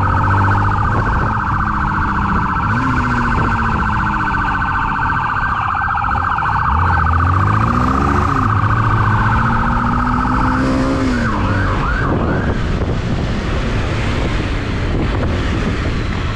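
Police motorcycle siren warbling rapidly over the motorcycle's engine, which revs up and down. The siren stops about ten seconds in, leaving engine and road noise.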